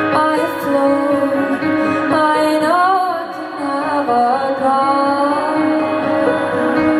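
Live concert music in a poor-quality audience recording. A female singer holds a slow, wavering melody over sustained backing chords.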